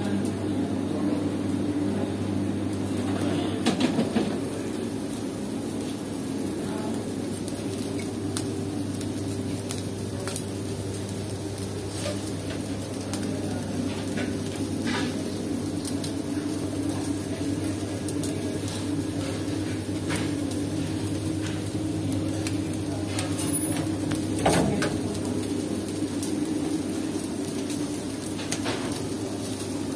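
Chicken sizzling on a charcoal grill over a steady low mechanical hum, with a few knocks along the way.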